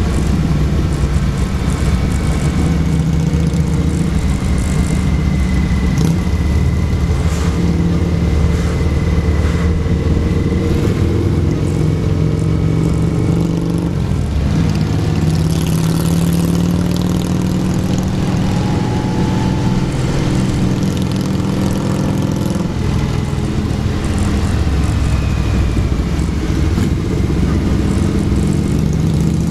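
Motorcycle engine running at road speed while riding in a group, heard from on the bike, with a steady rush of wind and road noise; the engine note shifts in pitch a couple of times as the speed changes.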